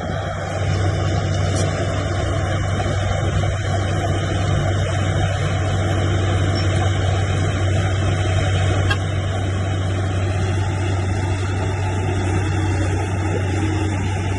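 Heavy diesel engine of earthmoving machinery running steadily under work, a constant low drone.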